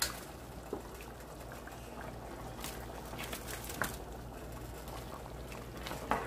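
A pot of pepper sauce bubbling at a steady boil, with a few short light knocks as turkey pieces are tipped in and stirred with a spatula.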